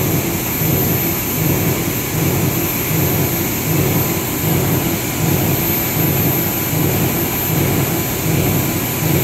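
Meltblown filter production machinery running steadily: a loud rumble that pulses about three times every two seconds, with a thin high whine above it.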